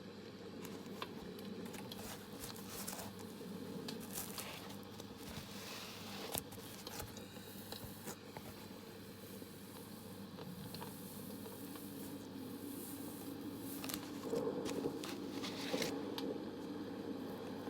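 Close-miked ASMR handling sounds: irregular soft crinkling, crackling and small clicks over a steady background of white noise.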